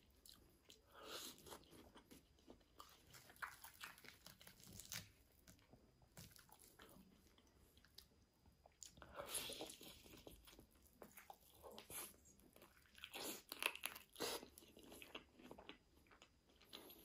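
Close-miked eating of breaded chicken and grilled potatoes: crunchy bites and chewing in irregular bursts. The loudest bites come about halfway through and again about three-quarters through.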